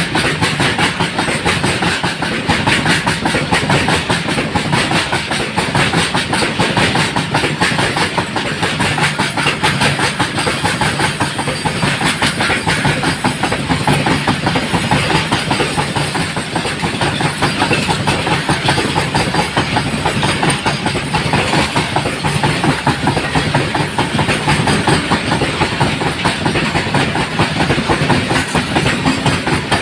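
Long freight train of open wagons rolling past, loud and steady: the rumble and rapid clatter of many wheels over the rail joints.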